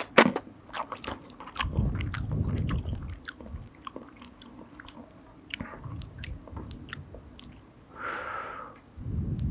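Close-miked eating of soup noodles: chewing and biting with sharp, wet mouth clicks, and a short hissing intake near the end.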